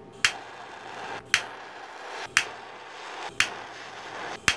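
Five sharp clicks at an even pace, about one a second.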